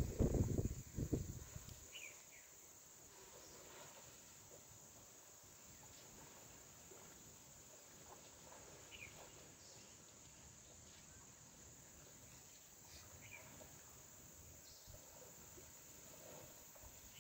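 Faint outdoor ambience: a steady high-pitched insect drone with a few short bird chirps scattered through it. A loud low rumble of noise fills the first second or so.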